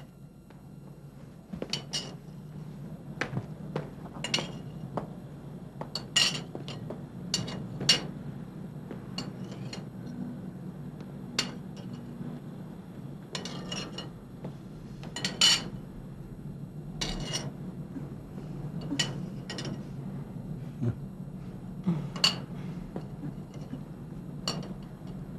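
Cutlery and china clinking at a dinner table: irregular light clinks of utensils against plates and dishes, over a low steady hum.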